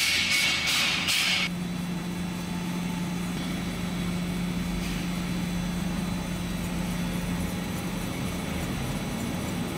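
Metal lathe running with a steady hum. In the first second and a half there is a harsh metal-on-metal scraping from a hand tool worked against a bronze part.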